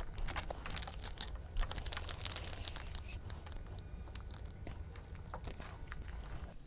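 Plastic seasoning sachets crinkling and being torn open, with a run of small sharp crackles.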